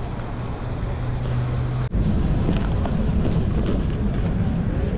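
City street noise: traffic and wind on the microphone. A low steady hum is heard for a moment, then the sound breaks off sharply about two seconds in and resumes louder and busier.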